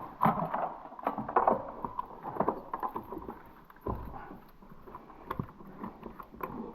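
Irregular clicks, knocks and scraping of hand tools and metal parts being handled in a truck's engine bay.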